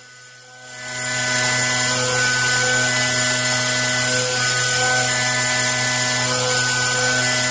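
A CNC mill spindle driving an indexable back draft cutter through a finishing pass in a deep metal pocket: a steady whine of several tones over a high hiss. It fades in over the first second and begins to fade out at the very end.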